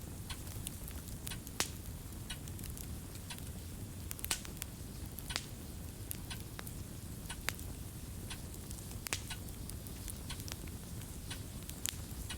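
Fireplace crackling: irregular sharp pops and snaps at uneven intervals over a steady low rumble of the fire.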